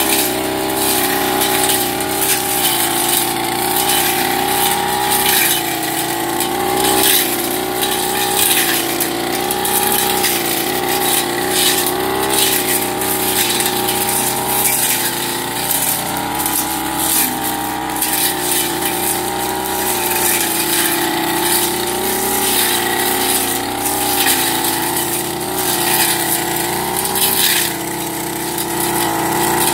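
Backpack brush cutter's small two-stroke engine running steadily at working throttle, its pitch wavering slightly under changing load as the spinning cutting head chews through weeds. Frequent short crackling ticks come from the head striking the vegetation.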